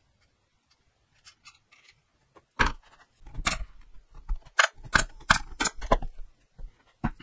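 A run of sharp clicks and wooden knocks starting about two and a half seconds in: small wooden chair parts and a pneumatic brad nailer being handled on a plywood workbench.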